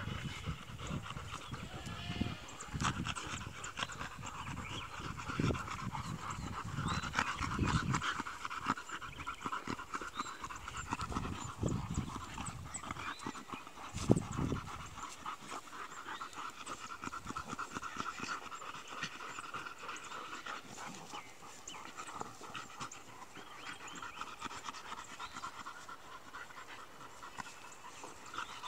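Dogs panting steadily, with scuffling and rustling of movement during the first half and a single sharp knock about fourteen seconds in.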